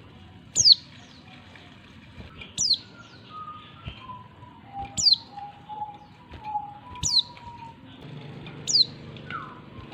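Female oriental white-eye calling for a male: five sharp, high call notes, each sliding steeply down in pitch, about one every two seconds. Fainter, lower whistled notes run between the calls.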